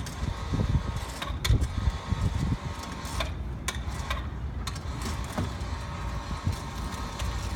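An engine running steadily with a low rumble, with several sharp knocks and clanks scattered through it.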